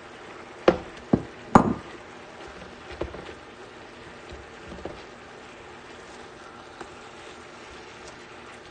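A spatula stirring chorizo and chicken pieces in a stainless steel pan, with three sharp knocks in quick succession about a second in and a few softer scrapes and clicks after.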